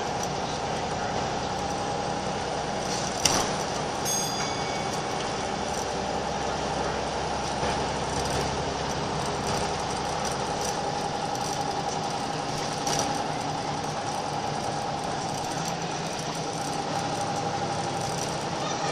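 Scania L94UB Wright Solar single-deck bus's diesel engine running steadily under way, heard from inside the saloon, with a steady whine over the engine drone. A click about three seconds in and a short ding just after.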